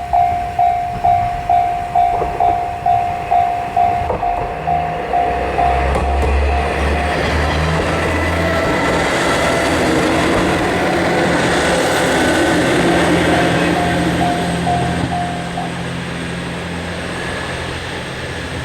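Japanese level-crossing warning bell clanging about three times a second while a train passes over the crossing. The train's rumble and rail noise come in about four seconds in and take over, and the bell stops near the end.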